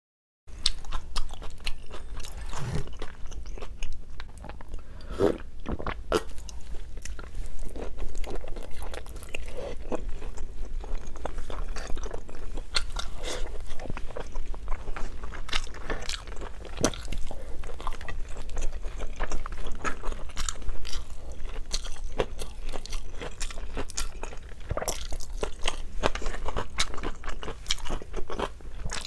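A person chewing and crunching food close to the microphone: a steady, dense run of small crunches and mouth clicks.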